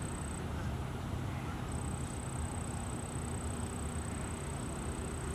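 Steady outdoor background rumble with no distinct events, and a thin high-pitched whine that drops out for about a second early on and then returns.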